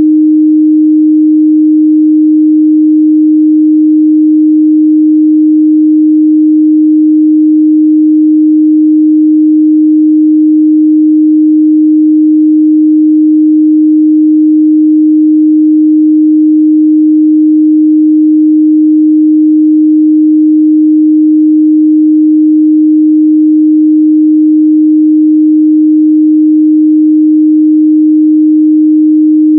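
Steady pure sine-wave test tone at 308 Hz, held at a constant loud level with no change.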